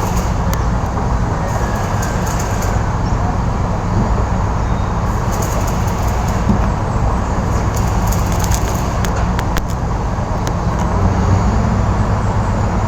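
Steady low vehicle rumble, with scattered light clicks and taps.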